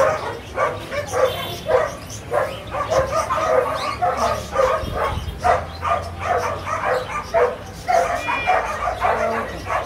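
A dog barking over and over, short barks at about two a second without a break.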